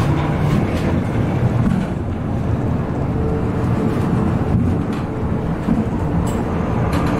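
Babbacombe Cliff Railway funicular car running along its rails, heard from inside the cabin: a steady rumble with a few faint clicks near the end.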